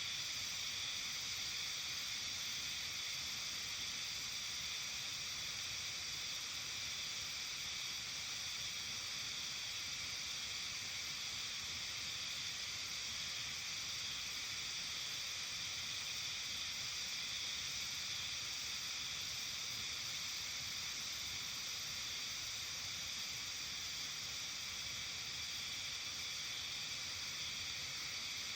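Steady, high-pitched chorus of many insects trilling together without a break, with a faint low rumble of background noise beneath.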